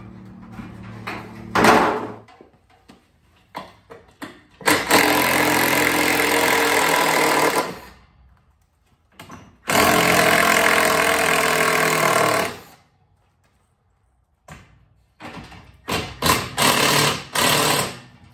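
Cordless impact driver hammering out the lag bolts that hold an old garage door track to the jamb, in two long runs of about three seconds each, then several short bursts near the end. A single knock comes about two seconds in.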